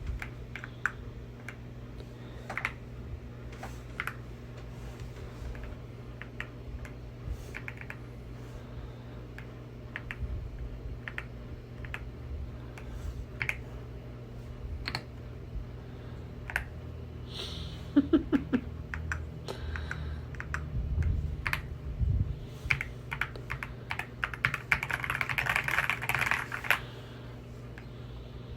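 Typing on a YUNZII X71 mechanical keyboard with Crystal Ice switches and transparent keycaps: irregular keystroke clicks, running into a faster burst of typing near the end.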